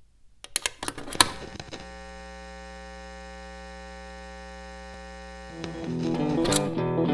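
A few sharp clicks, then a steady electric buzzing hum for several seconds. About five and a half seconds in, electric guitar notes come in and grow louder as the song starts, with a bright swish near the end.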